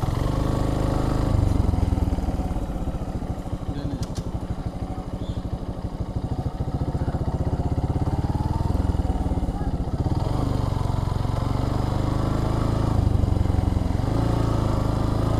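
Suzuki Gixxer single-cylinder motorcycle engine running while being ridden, its note changing around ten seconds in.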